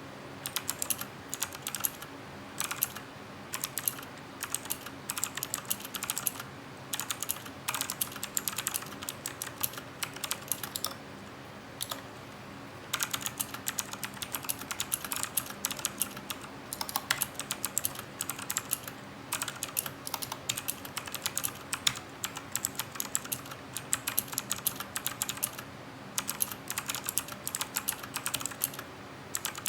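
Fast, irregular typing on a Cooler Master CK350 mechanical keyboard with clicky Gateron Blue switches, each keystroke a sharp click. The typing stops for about two seconds about ten seconds in, then carries on.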